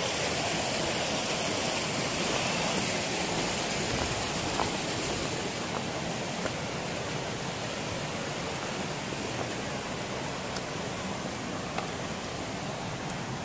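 Waterfall rushing steadily, an even hiss with no breaks. Its highest part eases off about halfway through, and a few faint clicks come through.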